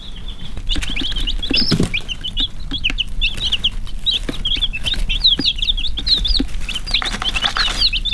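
A brooder of baby chicks peeping: many short, high chirps overlapping, several a second. A few light taps and a soft thump can be heard, one a little under two seconds in.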